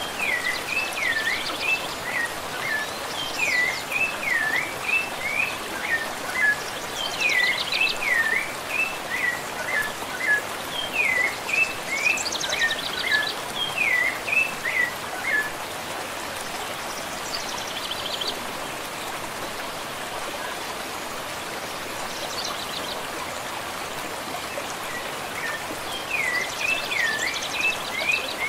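Rufous-bellied thrush (sabiá-laranjeira) singing phrase after phrase of clear, looping whistled notes, over a steady background hiss of water. The song stops about halfway through and starts again near the end, leaving only the hiss in between.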